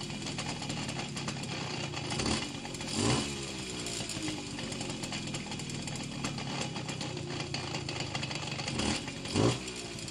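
Simson S90 moped's two-stroke single-cylinder engine idling and revved briefly, in two pairs of blips about two and three seconds in and again near the end, the pitch falling back after each. The owner finds the sound as the revs drop strange.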